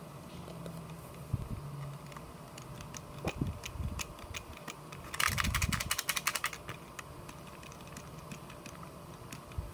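Plastic LEGO combination safe mechanism clicking as its knob and dial are worked by hand: scattered single clicks, then a fast run of clicks lasting just over a second about halfway through, with a few soft knocks of the bricks being handled.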